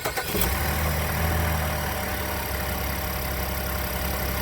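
A 2014 Chevrolet Impala's V6 engine catches at the very start, then settles into a steady idle, its first run on fresh oil after an oil change so the new oil can circulate.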